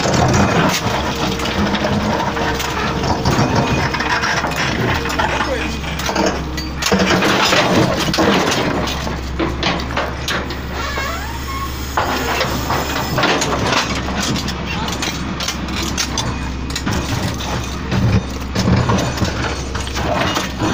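Excavator engine running steadily as a low hum, with scattered knocks and clinks of rock.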